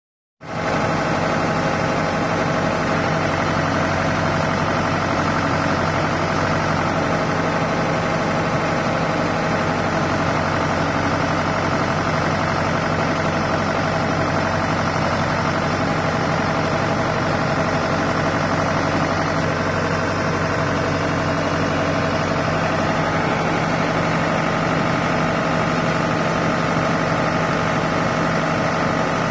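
Diesel engine running steadily at an even, unchanging speed, like a machine idling.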